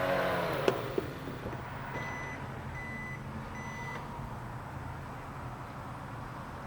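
Range Rover engine revs dropping back to idle, two sharp clicks, then three short, evenly spaced electronic beeps from the car, over the steady idle.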